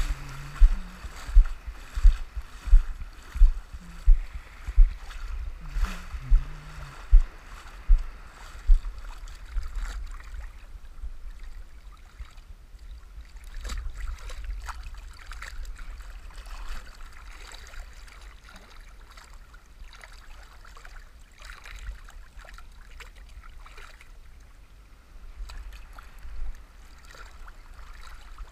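Steady low thumps in a walking rhythm, about one every 0.7 s, as someone wades out through small surf waves; they stop about nine seconds in. After that, sea water washes and sloshes with small splashes as fish fillets are swished and rinsed in a plastic colander in the shallows.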